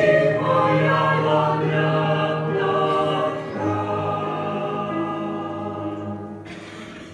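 Mixed church choir singing a slow hymn in parts, holding long chords that fade away toward the end.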